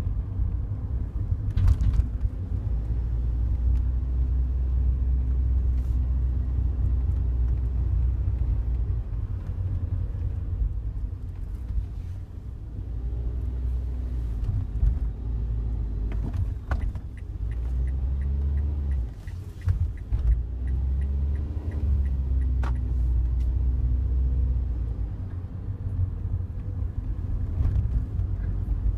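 Cabin noise of a Daihatsu Wake on the move: a steady low road and engine rumble, with scattered light clicks and a run of fast ticks about halfway through. The clicks fit the rattle from the passenger-side dashboard, which gets louder with vibration.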